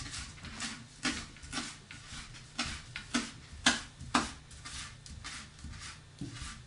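Chef's knife slicing a roll of fresh basil leaves on a wooden cutting board: a run of short knife taps on the board, about two a second.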